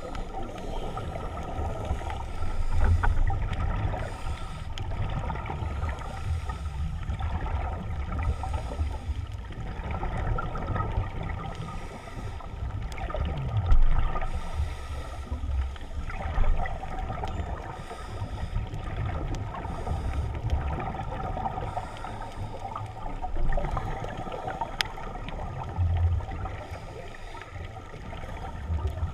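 Scuba diver's breathing through a regulator, heard underwater: hissing inhalations and low, gurgling exhaust bubbles, repeating every few seconds.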